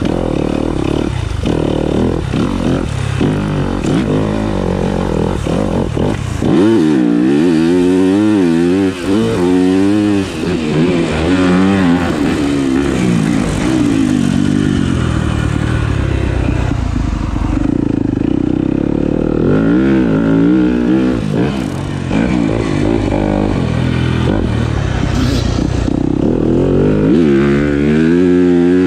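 Dirt bike engine being ridden hard, its revs rising and falling over and over with throttle and gear changes.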